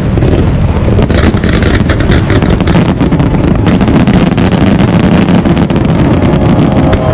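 Dense, continuous fireworks barrage: overlapping booms of aerial shells with a constant crackle of bursting stars, loud throughout.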